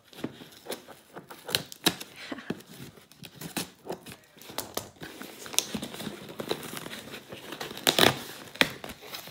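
Cardboard shipping box being torn open by hand: a run of crackling rips and scrapes as tape and flaps are pulled apart, loudest about eight seconds in.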